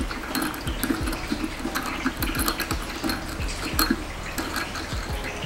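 Light, irregular metal clicks and scraping as a small M6 hex bolt with a lock washer is turned out of a tool grinder's wheel flange by hand.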